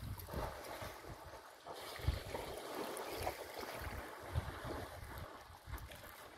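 Water sloshing and splashing as elephants wallow and swim in a waterhole, with wind rumbling on the microphone in irregular gusts.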